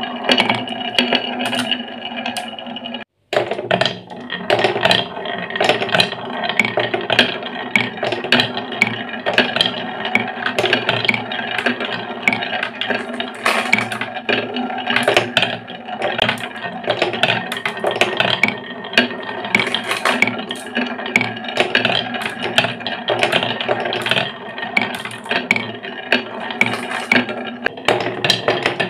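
Several glass marbles rolling and clattering down wooden wave-shaped tracks: a continuous rolling rumble with many quick clicks as they swing through the curves, drop between pieces and knock into each other. The sound breaks off for an instant about three seconds in.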